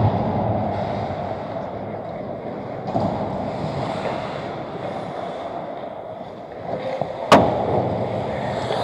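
Hockey skates scraping and carving on rink ice, echoing in an indoor arena, with one sharp crack of the puck about seven seconds in.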